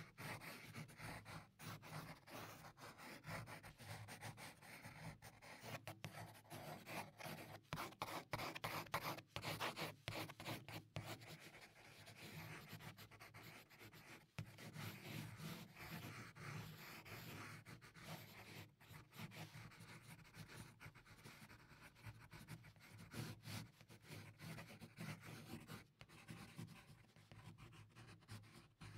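Faint scratching and rubbing of a graphite pencil on drawing paper as shading strokes are laid down: a quick, continuous run of short strokes, busiest about a third of the way through.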